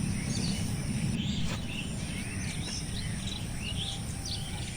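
Forest ambience: many short, high bird chirps and calls scattered throughout, over a steady low rumble of background noise.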